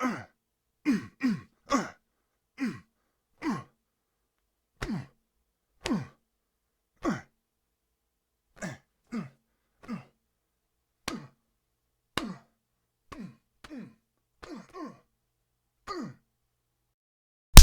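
A series of short, separate vocal grunts from a fight sound-effect set, each dropping in pitch, roughly one every half second to second. A few carry a faint sharp click.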